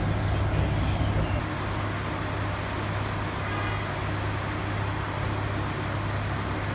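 Heavy diesel construction machinery running steadily: a constant low hum with an even rumble over it.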